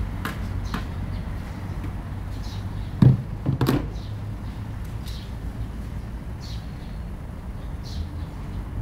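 A couple of dull knocks about three seconds in, as a long pole is leaned into a plastic bin. A bird gives short, high chirps every second or so over a low, steady rumble of distant traffic.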